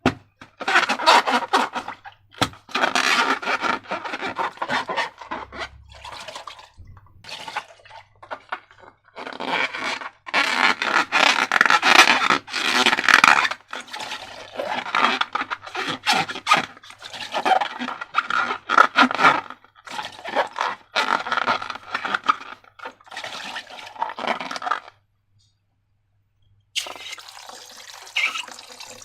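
Wet slime being squeezed, poured and worked, making irregular squelching and scraping sounds in bursts of a second or two. It stops for about two seconds near the end, and a fainter steady wet wash follows.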